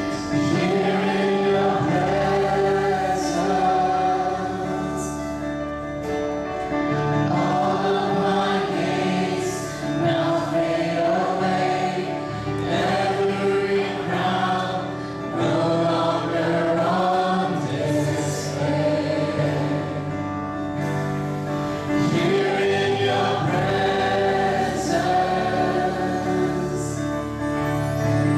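A contemporary Christian worship song sung in phrases by a small group of mixed male and female voices through microphones, over acoustic guitar and sustained instrumental backing.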